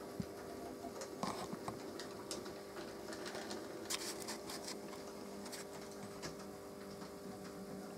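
Model railway diesel switcher locomotive running slowly, its small electric motor giving a faint steady hum, with scattered light clicks from its wheels over the rail joints and turnouts.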